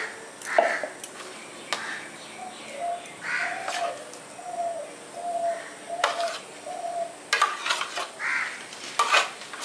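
A spoon scraping mango pulp off a plate into a steel mixer jar, with sharp clinks of metal on metal. In the middle a bird calls in the background with a run of short, evenly spaced notes.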